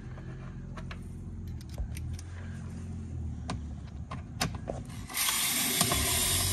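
Ratchet on an extension working the 7 mm bolts under a car's front bumper: scattered clicks and taps, then about two seconds of dense, fast ratcheting near the end.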